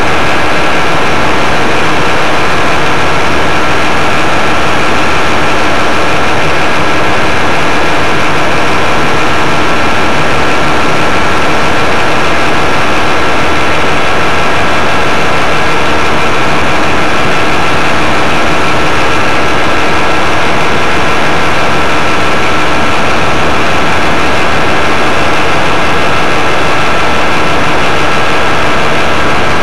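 Paramotor engine and propeller droning steadily at cruise, with an even rushing hiss and a steady high tone over it.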